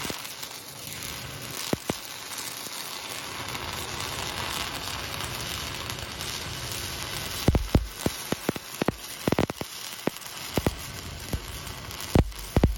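Stick-welding arc from a cellulose pipeline rod (6010/8010) laying a pass on a steel pipe branch joint: a steady hiss, with sharp pops and cracks from about halfway through.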